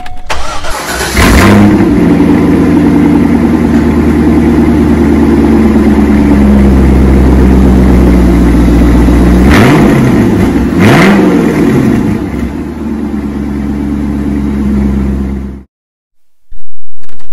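A 1998 Corvette C5's LS1 V8 starts about a second in and then runs steadily at idle. It is revved twice briefly past the middle, and the sound cuts off abruptly near the end.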